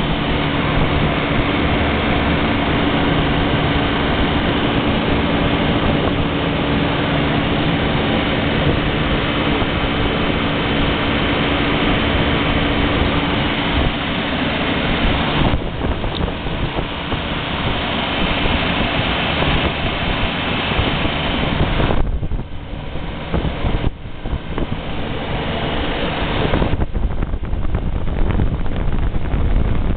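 Refrigeration condensing unit running: a semi-hermetic compressor and the condenser fan motor make a loud, steady hum under a rush of air. The hum's steady tone drops away about halfway through, and the sound dips briefly twice later on.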